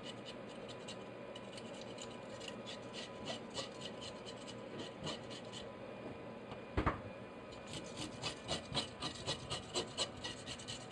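Metal fish scaler scraping the scales off a whole fish in a stainless steel sink, in quick repeated strokes that grow louder and settle to about three a second near the end. One dull thump about two-thirds of the way in.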